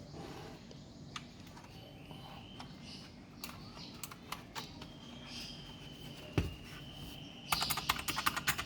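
Keys being typed on a Keychron K4 mechanical keyboard with clicky optical blue switches: scattered single key clicks, one heavier thump about six seconds in, then a fast run of typing near the end.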